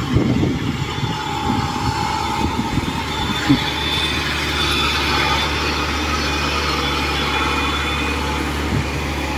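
Engine of a tracked rice-transport carrier, loaded high with sacks of rice, running steadily as it drives past close by.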